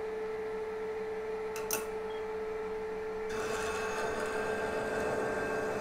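Watch-lapping machine running with a steady hum while a watch case is held against its abrasive surface, putting a mirror finish on a bevel. The rubbing grows louder and harsher about three seconds in.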